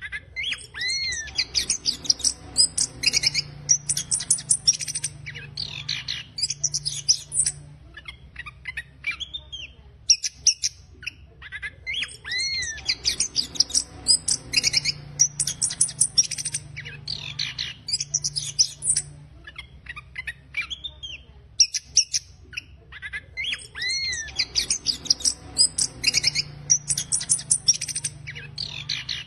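Chestnut-capped thrush (anis kembang) singing a rough, fast chattering song (ngeriwik kasar) of high notes mixed with short rising-and-falling whistles. It sings in long bouts with brief pauses, and the same phrase comes back about every eleven seconds.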